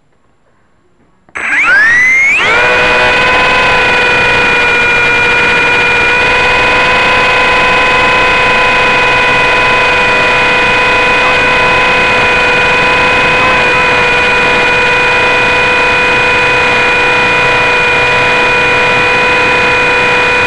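Blade mSR X micro RC helicopter's electric motors spinning up about a second in, the whine rising quickly in pitch, then holding a steady, loud whine throughout the flight. It is heard right up close from a keychain camera mounted on the helicopter.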